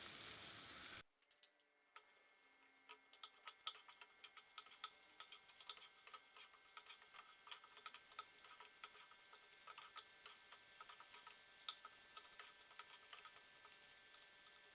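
Faint, irregular crackling of chopped vegetables and tomato frying in oil in a pan.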